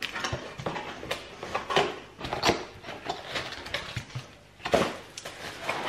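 Cardboard box flaps being opened and packing material pulled out and handled: irregular rustling, scraping and light knocks.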